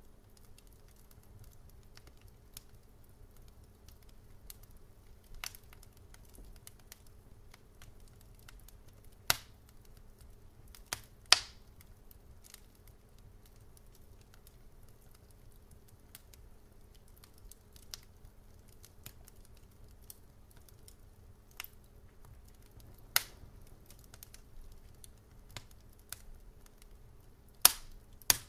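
Sharp cracks and clicks scattered a few seconds apart over a faint steady hum, the loudest crack about eleven seconds in.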